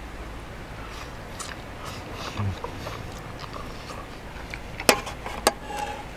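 Person eating noodles with chopsticks: small mouth and handling noises, a soft thump about two and a half seconds in, then two sharp clicks of tableware near the end as the bowl is set down.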